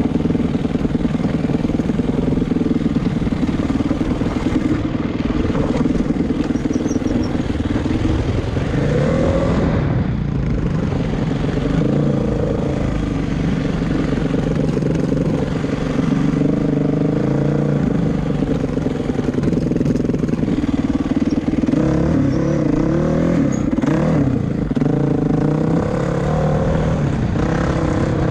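Honda dirt bike engine running under way over rough ground, its pitch rising and falling as the throttle is worked, picked up by the rider's helmet camera.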